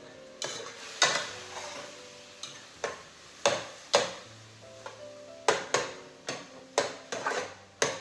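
Irregular sharp clinks and knocks of a utensil against a cooking pot as chicken and onions are stirred, about a dozen in all, over soft background music.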